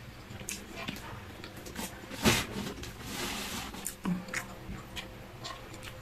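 A person chewing and smacking their lips while eating fried instant noodles and rice by hand, with scattered small wet clicks and one louder smack about two seconds in.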